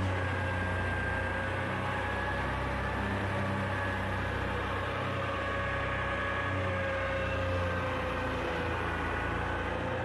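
Tractor-powered wheat thresher running steadily while wheat sheaves are fed in: a low tractor engine drone under a steady whine from the threshing machine.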